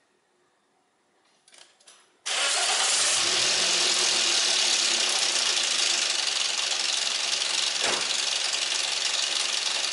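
2004 Toyota Yaris 1-litre three-cylinder gasoline engine starting about two seconds in, after a few faint clicks, then running with a loud clatter that sounds like a diesel engine. The mechanic believes the valve clearances are too large, and thinks the timing chain may be stretched.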